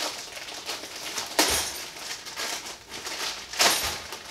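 Plastic bag crinkling and rustling as it is handled and pulled open, with two louder crackles, about a second and a half in and again about two seconds later.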